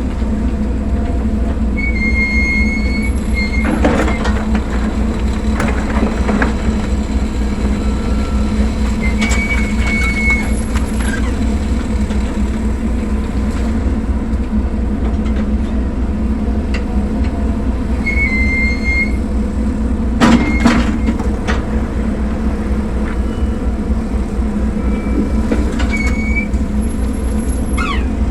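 Backhoe's diesel engine running steadily as it digs, with short high squeals about every eight seconds and sharp knocks about four and twenty seconds in.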